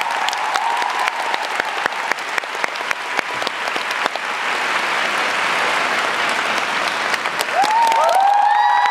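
Arena audience applauding, a dense patter of clapping, with high-pitched cheers and screams from the crowd swelling in near the end.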